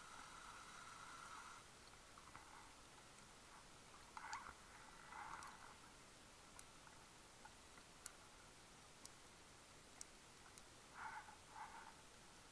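Near silence underwater: faint hiss, a scattered handful of sharp clicks and a few short soft bursts, one close pair near the end.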